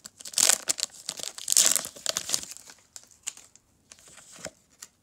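Foil Pokémon booster pack wrapper being torn open and crinkled, in two loud bursts within the first two and a half seconds. Fainter rustles and clicks follow as the cards are pulled out and handled.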